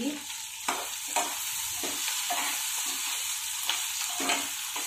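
Potatoes and onions frying in oil in a nonstick kadai, with a steady sizzle. A spatula stirs and scrapes through them, making irregular scrapes and light knocks against the pan.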